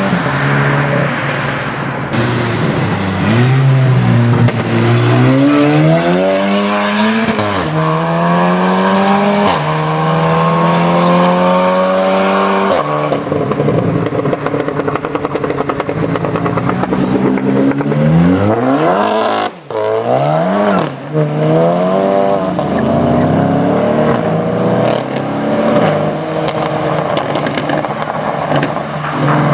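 Straight-piped Volkswagen Golf GTI 7.5's turbocharged 2.0-litre four-cylinder engine accelerating hard. Its pitch climbs and drops several times as it runs up through the revs, with a sharp brief cut about two-thirds of the way through.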